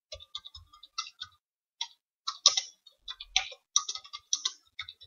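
Computer keyboard keystrokes, a quick irregular run of sharp clicks, several a second, as text is typed into a form.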